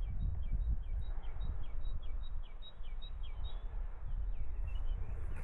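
Wind rumbling on the microphone, with a songbird repeating short, high, falling notes, about three a second, that thin out in the second half.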